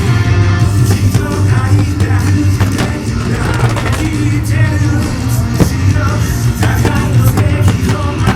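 Loud rock-style song with singing and a driving drum beat, played over the fireworks show's loudspeakers, with sharp hits throughout.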